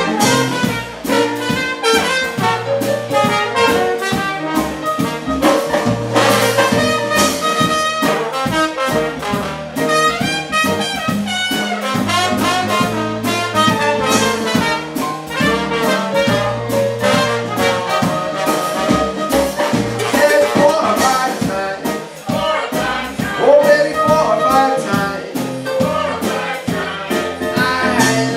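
Live jazz band playing an instrumental passage, trumpet and trombone carrying the lines over a steady beat.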